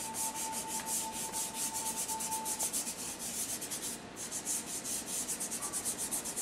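A soft pastel stick scratching across pastel paper in quick, short, repeated strokes, several a second, with a brief pause about four seconds in. A faint steady high tone sounds underneath for the first two and a half seconds, then stops.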